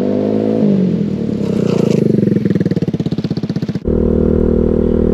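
Kawasaki Z125 Pro's single-cylinder engine running while being ridden, its pitch dipping and then rising as the throttle is rolled on. Near the end it changes abruptly to a steadier engine note.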